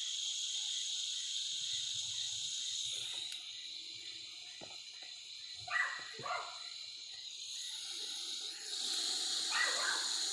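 Crickets chirring steadily, with a dog barking twice around six seconds in and once more near the end. About nine seconds in, a steady hiss begins as the heat torch is lit.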